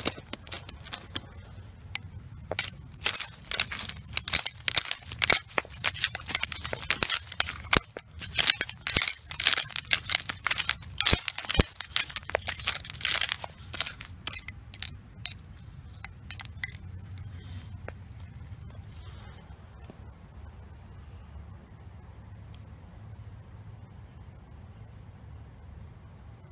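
A metal hand digging tool scraping and clicking against stones and gravel in a stony railbed, with dry leaves crackling; a dense run of sharp scrapes that thins out and stops about two-thirds of the way through. A steady high insect trill sits underneath.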